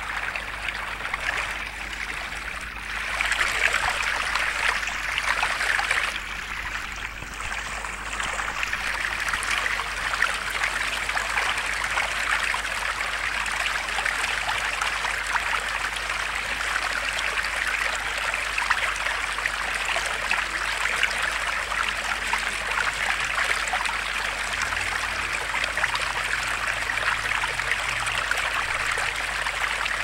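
Water falling and trickling steadily from the small pipe spouts of a homemade thermocol tabletop waterfall fountain, splashing down its tiers into the basin.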